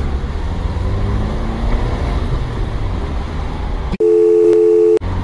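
Car engine and road noise heard from inside the cabin, a steady low rumble. About four seconds in, a one-second steady two-note bleep tone cuts in abruptly and replaces all other sound, then cuts off, in the manner of a censor bleep.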